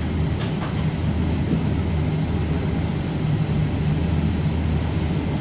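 Interior noise of a regional train pulling out of a station, heard inside the passenger carriage: a steady low rumble and hum from the running gear and traction. A couple of faint clicks come about half a second in.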